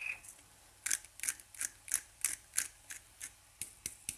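Seasoning grinder being twisted by hand, about eleven short grinds at roughly three a second, starting about a second in.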